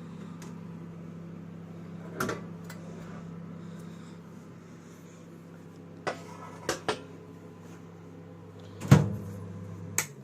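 IFB convection microwave oven humming steadily after baking, with sharp clicks and knocks as its door is opened and the hot cake tin is handled; the loudest knock comes near the end.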